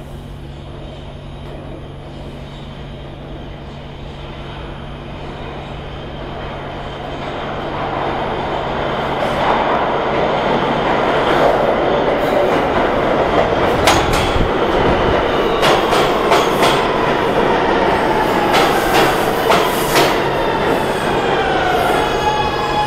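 R211A New York City subway train arriving at an underground station. Its running noise grows louder as it approaches, with sharp clacks as the wheels cross rail joints, and a whine falls in pitch as the train brakes to a stop.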